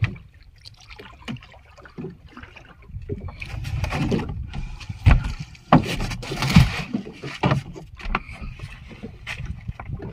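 A large sailfish being hauled aboard a small fishing boat: a stretch of splashing midway, then several heavy thumps and knocks as the fish and the pole hit the boat's hull and deck, with smaller knocks before and after.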